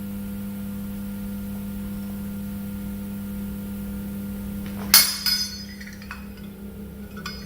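A sharp metallic clink with a short bright ring about five seconds in, followed at once by a smaller second clink, from the solid brass Zippo lighter being handled after refuelling. A low steady hum runs underneath.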